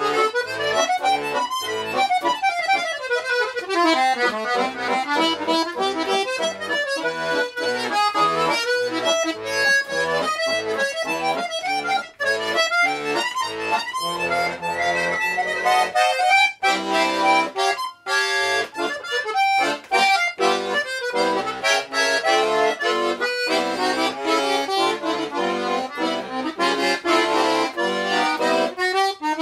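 A small 'Ogonyok' bayan (Russian button accordion), freshly repaired, playing a lively tune: quick melody runs on the right-hand buttons over bass notes, with a few brief breaks midway.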